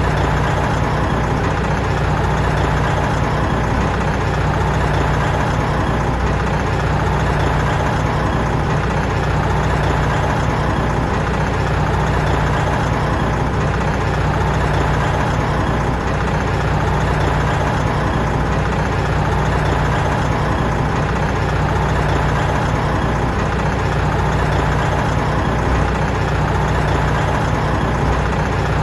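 Big truck's diesel engine idling steadily, a deep even running without revving.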